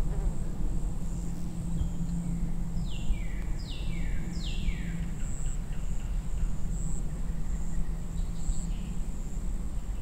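Forest ambience: a steady high insect drone over a steady low rush. About three seconds in, a bird calls three times, each call falling in pitch.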